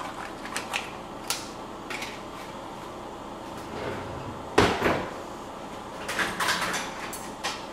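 Scattered clicks and knocks as cream cheese is scooped from its plastic tub into a glass mixing bowl, with one louder knock about halfway through.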